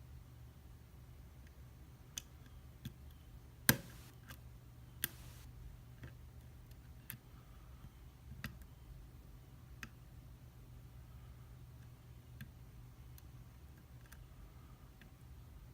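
Lock pick and tension wrench working in a pin-tumbler lock's keyway: sparse, irregular sharp clicks and ticks as pins are lifted, one much louder click about three and a half seconds in.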